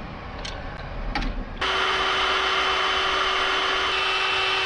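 A few light ratchet clicks, then about a second and a half in a cordless drill starts and runs at one steady speed, drilling out a snapped bolt in the rusty axle housing's bracket.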